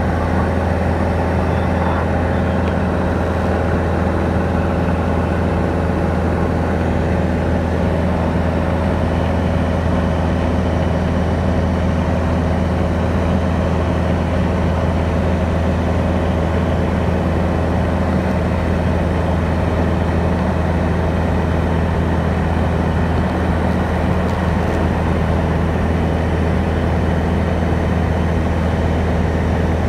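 Small aircraft's engine and propeller droning steadily, heard from inside the cabin: a loud, even, low hum.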